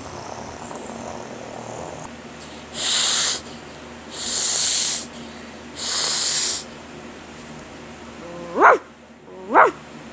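A person imitating animals with their voice: three long breathy hisses, then two short, high, yipping dog barks near the end.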